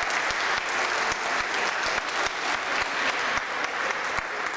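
A small group of people clapping steadily, many quick overlapping claps.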